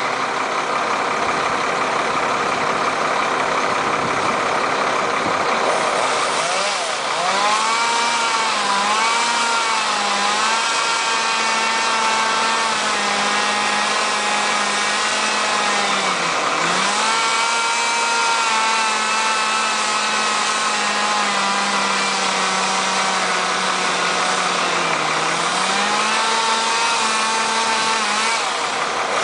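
An engine running steadily throughout, its pitch wavering and dipping briefly a few times, as under changing load.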